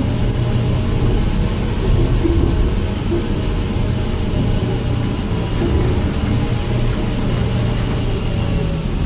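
Caterpillar 3116 diesel engine and drivetrain of an M1088 FMTV 6x6 truck running steadily at low speed, heard from inside the cab as a constant low rumble with a faint whine. Scattered small clicks over it.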